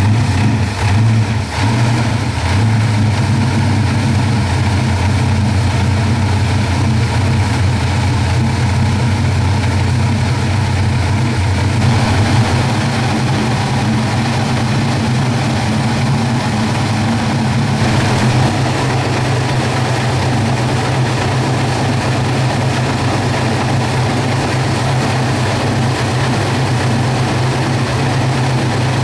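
The Napier Railton's freshly rebuilt 24-litre Napier Lion W12 aero engine running steadily at standstill, a deep, even note. The sound grows a little fuller about twelve seconds in and again a few seconds later.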